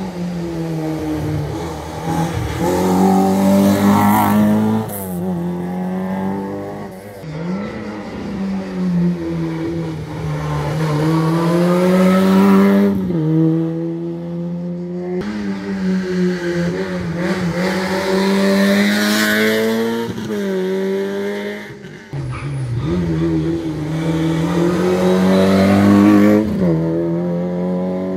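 Rally car engine revving hard through the gears: the pitch climbs, breaks at each gear change or lift, and climbs again several times.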